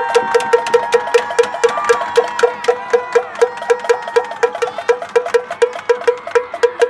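A fast, even percussion beat, about four or five sharp cowbell-like clicks a second, over a steady held tone. It cuts off suddenly at the end.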